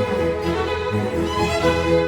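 Background music led by violin and other bowed strings, with a steady bass line underneath.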